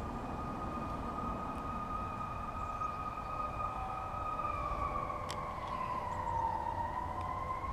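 A steady, high-pitched whine that dips in pitch and rises back near the end, with one faint click about five seconds in.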